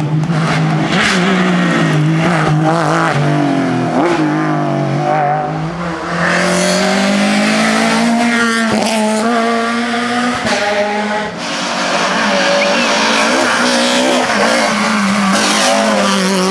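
Rally car engines revving hard through the gears as the cars pass. The pitch climbs and drops repeatedly, and a few sharp pops come in the middle.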